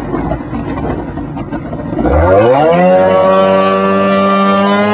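Wildcat Picklefork personal watercraft's Cuyuna two-stroke engine idling with a low, uneven rumble, then about two seconds in the throttle opens and it revs up in a quick rising whine. It then holds a steady high pitch as the craft pulls away.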